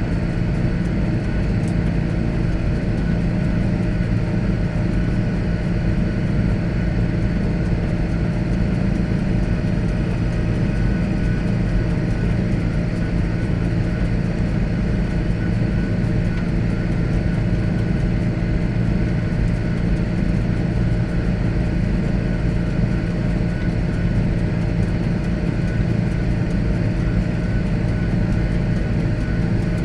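John Deere 8410 tractor's six-cylinder diesel engine running at a steady, unchanging pitch.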